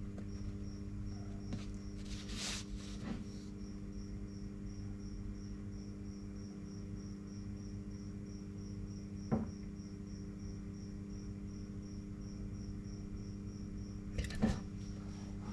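Steady low electrical hum with a high, thin chirp repeating about four times a second. A couple of brief paper rustles and one sharp click about nine seconds in.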